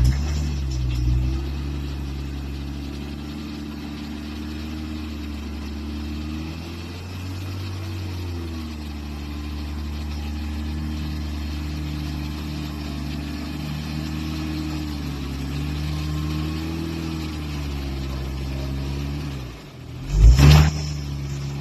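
Jeep Wrangler engine running at low revs while crawling up steep rock, its pitch rising and falling gently with the throttle. A loud sharp knock comes about 20 seconds in.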